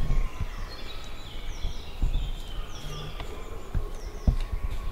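Woodland birds singing: a run of quick high chirps and short falling whistles from several birds at once, with a few faint knocks underneath.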